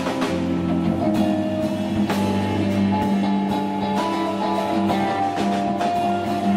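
Rock band playing live: electric guitars holding long sustained notes over a drum kit, with occasional cymbal crashes, in a concrete arched chamber.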